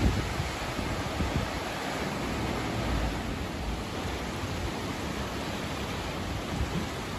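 Swollen floodwater rushing steadily, a constant even hiss of water with low rumbles now and then.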